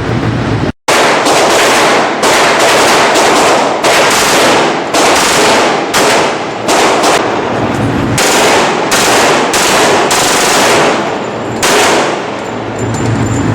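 Rapid gunfire from a pistol-calibre firearm, fired in strings of shots with short breaks between them. The sound cuts out briefly just under a second in.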